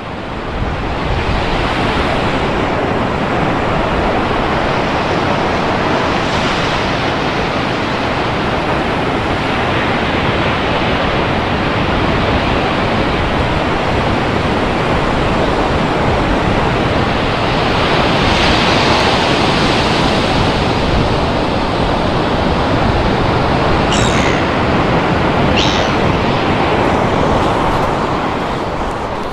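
Surf rushing onto a flat sand beach in a steady wash of noise that swells louder now and then. Two short high sounds come near the end.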